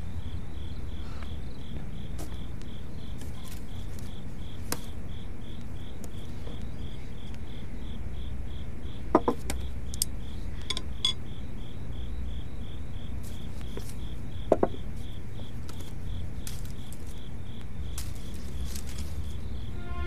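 Crickets chirping steadily, about three chirps a second, over a low rumble. Light clicks and hollow knocks of bamboo baskets and containers being handled come through it, the two loudest about nine and fourteen and a half seconds in.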